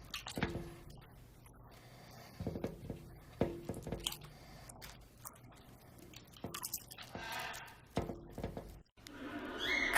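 Pet parrot making faint, scattered clicks and a few short, quiet chirping sounds.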